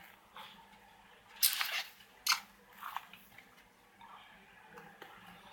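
Handling noise: a few sharp plastic clicks and crackles as a LiPo battery and charger leads are handled, loudest about a second and a half in and again just after two seconds.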